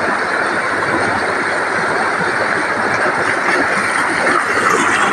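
Steady rush of floodwater pouring over the lake's overflow, a loud, even roar of turbulent water.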